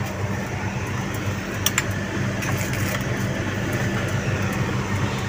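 Steady low machine hum with a faint click about a second and a half in.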